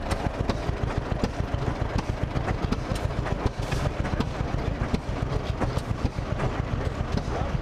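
Antique tractor engine running with a rapid, even exhaust beat.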